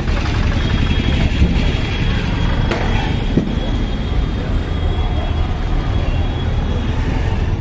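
Busy street traffic: buses, trucks, auto-rickshaws and motorbikes running close by in a steady low rumble, with a faint, thin high tone held through most of it.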